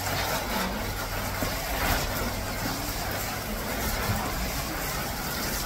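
Water spraying from a garden hose spray gun over young potted trees, a steady hiss.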